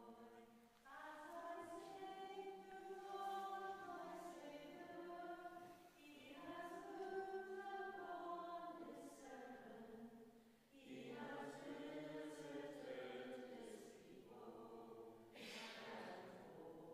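Congregation singing the closing hymn of Mass in long phrases, with short breaks about 6 and 11 seconds in.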